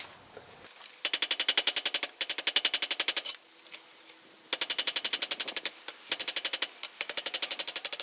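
Rapid, even hammer blows on hot mild steel against an anvil, about ten a second, with a high metallic ring, in several runs of about a second broken by short pauses, the longest about three seconds in. The steel is being drawn down into the shaft of a forged key.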